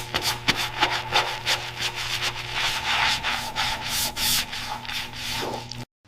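Hand sanding: rapid back-and-forth rubbing strokes, several a second, over a steady low hum, cutting off suddenly near the end.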